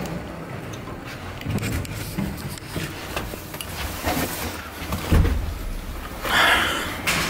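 People shuffling into an elevator car, with footsteps and jacket rustle and a low thump about five seconds in. A brief rushing sound follows about a second later as the elevator's sliding doors close.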